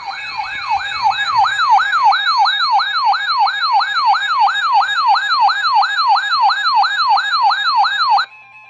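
Electronic yelp-style siren alert tone from a broadcast emergency weather alert, sweeping rapidly up and down a little over three times a second, then cutting off abruptly near the end.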